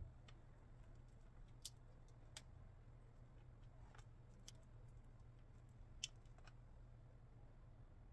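Near silence: a low steady hum with a few faint, scattered clicks and taps, the sharpest about six seconds in.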